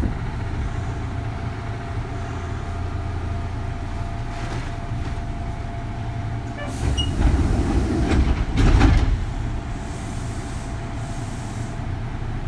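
Kintetsu 3200 series electric train running, heard inside a motor car: a continuous low rumble of wheels and motors on the rails, with a steady thin whine that fades out about seven seconds in. The running gets louder and rattles for about two seconds in the second half.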